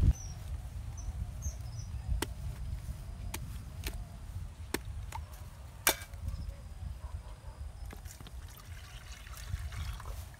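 Machete blade striking a young coconut several times in sharp single knocks, the loudest about six seconds in, as the top is chipped open; near the end the coconut water trickles from the opened nut into a clay pot. A low steady rumble runs underneath.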